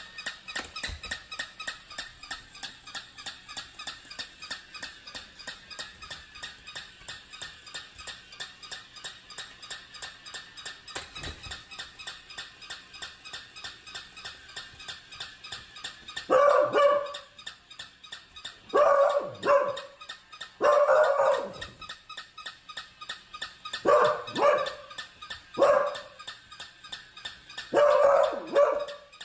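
A mechanical walking toy dog's motor clicks steadily, about four ticks a second. From about halfway through, a beagle barks loudly at it, in singles and pairs every couple of seconds, about nine barks in all.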